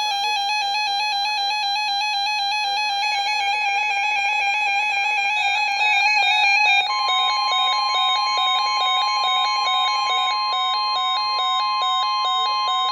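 Background music with a fast repeating figure. About seven seconds in, a single steady tone of about 1050 Hz starts and holds over it: the weather radio warning alarm tone that marks a high wind warning broadcast.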